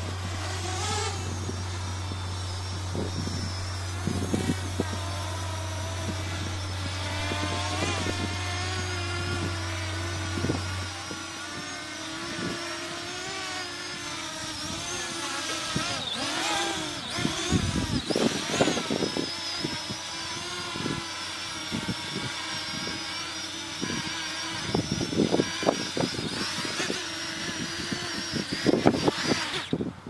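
Parrot Anafi quadcopter's propellers whining as it hovers in to land, several high tones wavering as the motors adjust. Irregular low rumbles come in and out, with a steady low hum for the first third or so.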